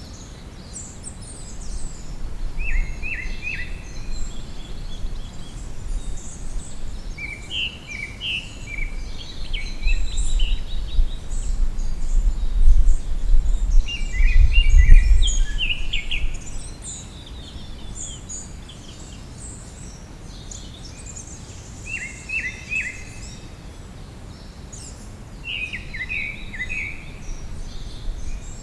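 Songbirds singing and calling, with short phrases repeating every few seconds over one another. A low rumble swells in the middle and is the loudest sound for a few seconds.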